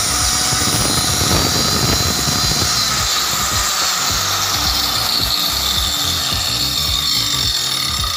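Handheld power tool cutting a groove along the edge of a laminated wooden cabinet panel, running steadily with a high whine over the grinding of the cut.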